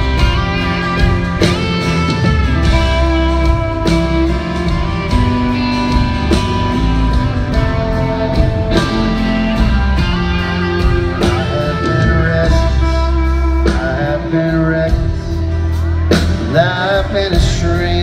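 Live country-rock band playing a song's instrumental intro: electric lead guitar over strummed acoustic guitar, bass guitar and a steady drum beat.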